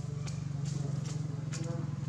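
A motor running steadily with a low, fast-pulsing drone, with scattered light clicks over it.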